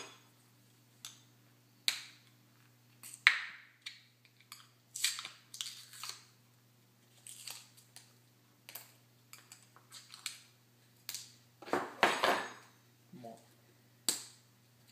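A small spice jar being handled and opened: scattered clicks and taps of its cap and plastic sifter seal, with brief rustles. The loudest sounds come about three seconds in and about twelve seconds in.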